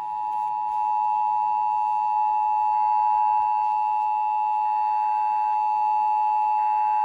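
Emergency Alert System attention signal: two pure tones sounding together, the standard 853 Hz and 960 Hz pair, broadcast by a radio station during a required monthly test. It swells over the first second and then holds steady.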